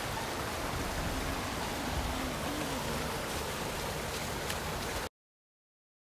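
Small waterfall and creek rushing steadily over rocks into a pool. The sound cuts off suddenly about five seconds in.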